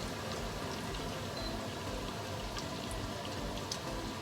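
Breaded chicken fillets frying in hot oil in a pan: a steady sizzle with a few scattered small pops.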